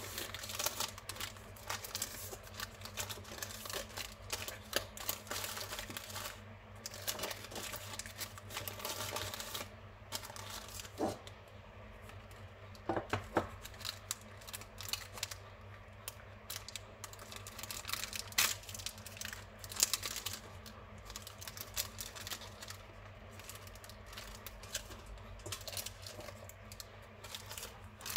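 Lemona vitamin powder packs and their yellow paper and plastic wrapping rustling and crinkling as they are handled and unwrapped, with irregular small clicks and a few sharper taps.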